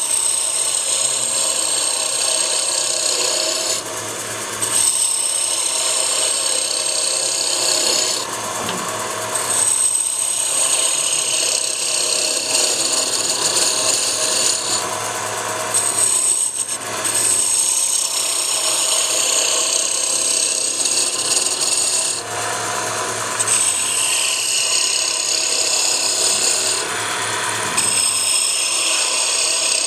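Roughing gouge cutting a spinning wood blank on a wood lathe, a steady scraping cut while the blank is tapered into a cone. It comes in passes of several seconds with short breaks between them, over the steady hum of the running lathe.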